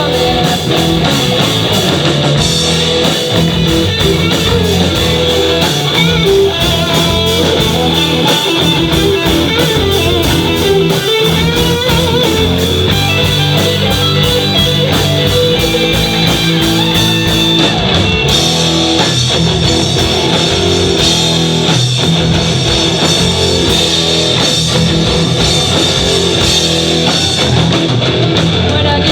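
Rock band playing live: electric guitar, bass and drum kit in an instrumental stretch of a cover song, steady and loud.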